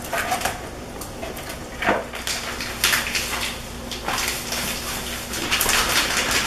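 Kitchen handling noises: a plastic grocery bag rustling and crinkling in short bursts as it is handled, with light knocks of bowls on the counter.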